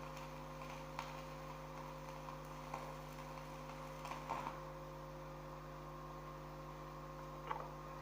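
Steady low electrical hum, with a few faint light clicks scattered through it.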